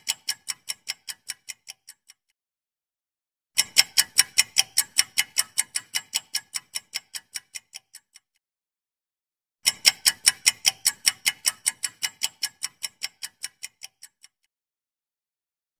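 Clock-like ticking sound effect of a quiz countdown timer: quick even ticks, about five a second. Each run starts loud and fades away. One run dies out about two seconds in, and new runs start about three and a half and nine and a half seconds in.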